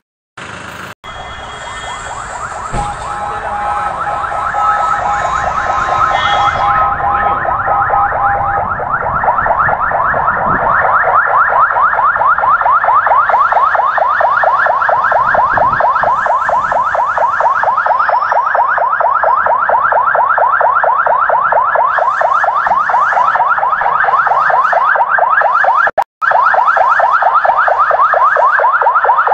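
Ambulance siren sounding with a rapid, repeating warble. It grows louder over the first ten seconds or so, then holds steady, and drops out for a moment near the end.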